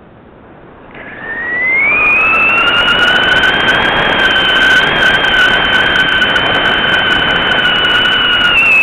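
Air whistling past a model rocket's onboard camera in flight: a high whistle climbs about a second in and holds steady with a second, lower whistle beneath it, over rushing, buffeting wind, then begins to fall near the end.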